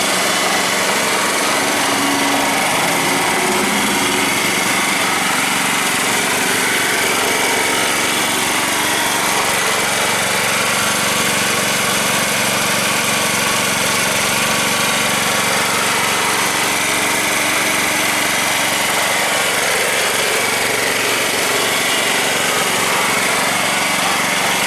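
Yamaha EF2800i inverter generator's small single-cylinder four-stroke engine running steadily in economy mode at a constant speed under the light load of a work light, with an even hum.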